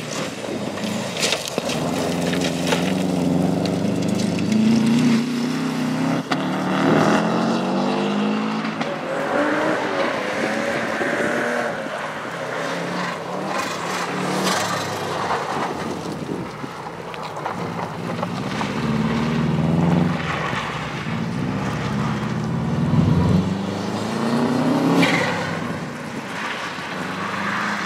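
Subaru Impreza's flat-four engine revving hard through a timed run, its pitch repeatedly climbing and dropping, with tyre noise on gravel and tarmac as the car passes.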